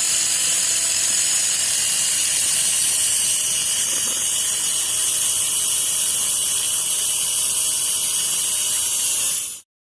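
Electric drill driving a whisk through a 3D-printed adapter, running steadily at speed. It stops abruptly near the end.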